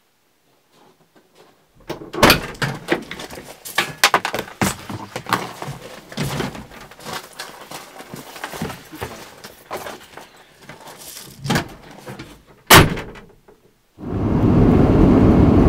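Gear being loaded into a vehicle: a run of knocks, thumps and rustling, then the vehicle's door slammed shut with one loud bang. Near the end a steady loud vehicle driving noise begins.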